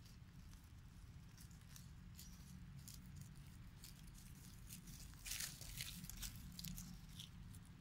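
Dry leaf litter crackling and rustling in short bursts as monkeys shift and handle the leaves, busiest a little past halfway, over a faint low rumble.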